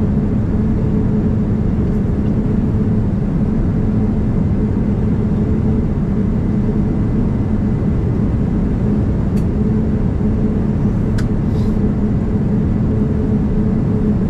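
Steady in-flight cabin noise of a Boeing 787-9 heard from a window seat over the wing: the even roar of airflow and engines with a low steady hum underneath. A couple of faint clicks come in the second half.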